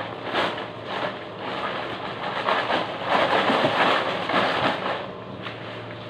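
Rustling and crinkling of a plastic bag and leafy mustard greens being handled and shaken, most intense in the middle and dying down near the end.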